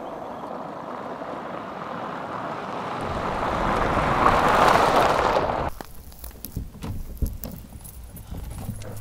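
A car driving up a gravel road, its tyre noise and engine growing louder for a few seconds, then cutting off suddenly. After that come a few light knocks and crunches.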